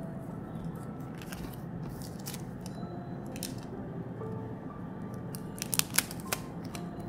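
Hands handling clear plastic sticker sleeves and a white paper wrapper: crinkling and rustling, with a cluster of sharp crackling clicks, the loudest, about six seconds in.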